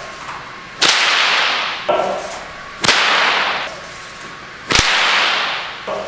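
Bullwhip cracking three times, about two seconds apart: sharp cracks as the tip breaks the sound barrier, each one trailing off over most of a second.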